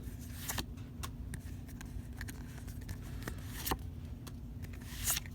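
Pokémon trading cards being handled and flicked through: scattered short card clicks and a brief rustle near the end, over a low steady hum.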